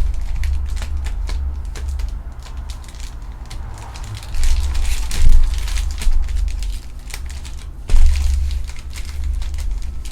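Foil trading-card pack wrappers crinkling and crackling as they are handled and torn open, with irregular handling bumps and thumps.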